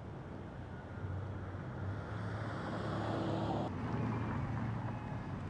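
Steady low outdoor rumble with a faint hum, a little louder in the middle, and a sudden change in the background noise about two-thirds of the way in.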